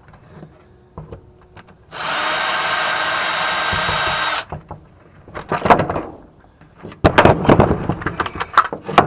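Power drill running steadily for about two and a half seconds while removing screws from a microwave oven, then metal parts clattering and knocking as they are pulled loose, twice, near the end.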